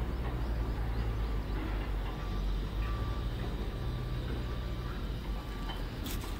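Steady low outdoor rumble with faint short bird calls now and then.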